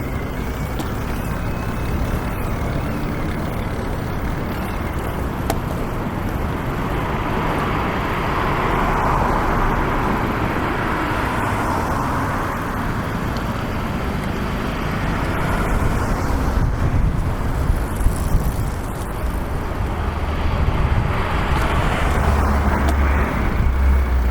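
Street traffic: cars passing on a busy city road, a swell of tyre and engine noise about a third of the way in and another near the end, with a low rumble rising at the very end.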